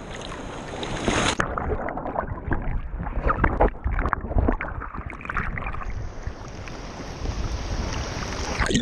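Sea water sloshing and splashing around a waterproof camera as it goes under and comes back up: the sound turns muffled and bubbly about a second in, and opens up again at the surface about six seconds in.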